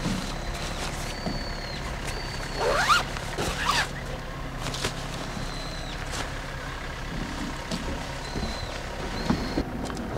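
A large fabric duffel bag being handled: rustling cloth and straps, with a short rising zip sound about three seconds in. A steady low hum sits underneath.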